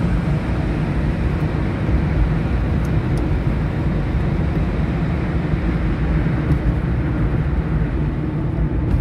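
Maruti 800's three-cylinder engine and tyre noise heard from inside the cabin while driving, a steady low drone.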